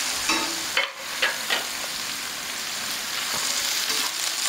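Minced mutton sizzling in hot oil with fried onions on a tawa. A metal spatula scrapes and clicks against the pan a few times in the first second and a half.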